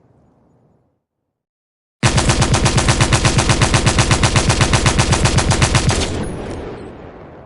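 Machine-gun sound effect: after a second of silence, a sudden burst of rapid fire at about ten shots a second lasting some four seconds, then an echoing tail that fades away. At the start the tail of an earlier sound dies out.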